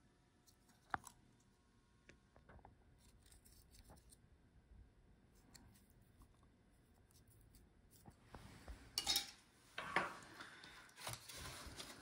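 Quiet handling of a small laptop USB I/O board and its ribbon cable, with a sharp click about a second in and a few faint ticks. In the last few seconds come louder scraping and knocking as the plastic laptop palm rest is picked up and moved.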